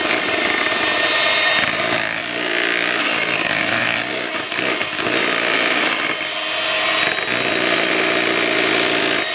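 Electric hand mixer running steadily, its twin wire beaters whipping thick cream frosting in a bowl.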